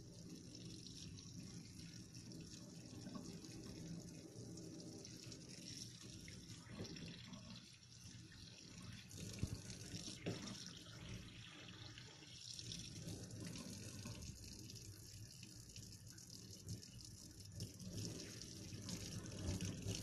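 Tap water running into a metal sink and splashing over the plastic parts of an electric HVLP paint sprayer as water-based paint is rinsed off them, with a few light knocks as the parts are handled.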